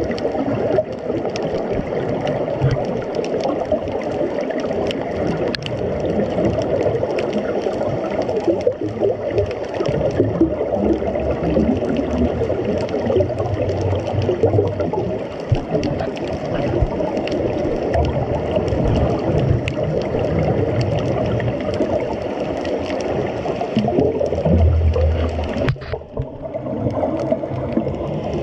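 Underwater ambience over a coral reef: a steady muffled water noise with scattered faint clicks and a few stronger low bubbling rumbles.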